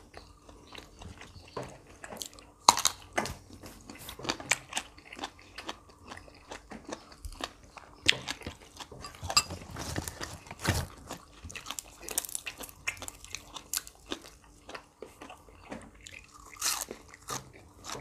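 Close-up crunching and chewing of crisp raw vegetables and herbs eaten with grilled pork salad: irregular crisp bites and crunches, the sharpest about three seconds in.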